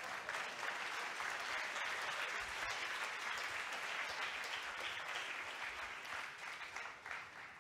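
Lecture-hall audience applauding, a dense patter of many hands that swells quickly and fades away near the end.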